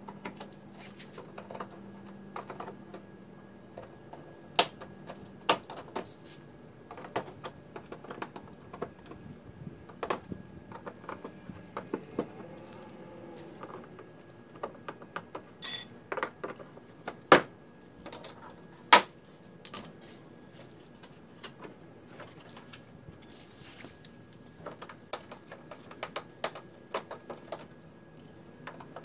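Irregular small plastic clicks, taps and rattles as the clips and fasteners of a 2014 BMW X3's front wheel-arch liner are worked loose by hand, with a few sharper, louder clacks around the middle.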